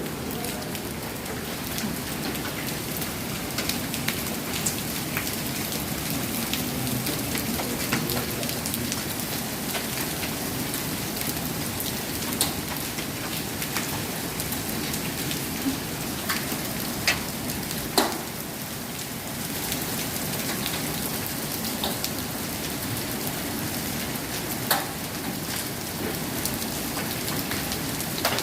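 Heavy rain pouring down steadily in a thunderstorm downpour, with occasional sharp taps of drops striking a nearby surface.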